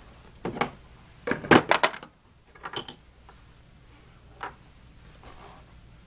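Metal hand tools clicking and clinking as pieces of a Craftsman mechanics tool set are handled and pushed into their slots in the case: a quick clatter of several clicks a little over a second in, then a few single clicks.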